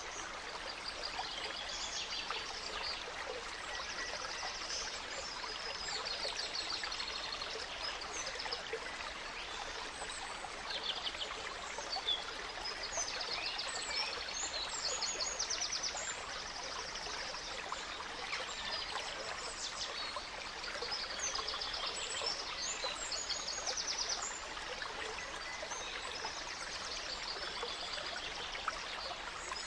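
Gentle stream running steadily, with several songbirds calling over it in short phrases and rapid trills.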